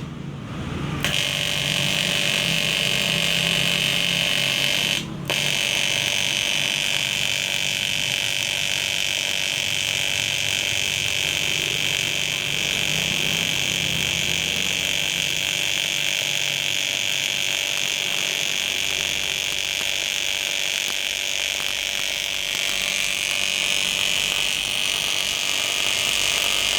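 Welding arc from an AC/DC 200 A pulse welding machine, buzzing steadily during a test weld. The arc is struck about a second in, breaks off for a moment around five seconds, then runs on and cuts off suddenly at the end.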